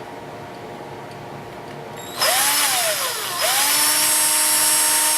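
Electric drill with a small bit starting up about two seconds in: its motor whine rises, sags and drops briefly, then picks back up and runs at a steady speed.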